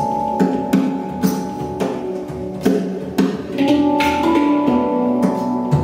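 Handpan played with bare hands: struck steel notes ring on and overlap in a melodic, rhythmic pattern.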